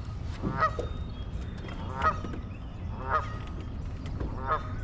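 A goose honking: four short, hoarse calls, about one every second to second and a half, like a dog with laryngitis.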